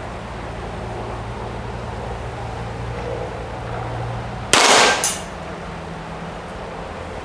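A single shot from a Smith & Wesson .38 revolver, firing lead-bulleted target rounds, about four and a half seconds in. The report is sharp and loud and rings on for about half a second.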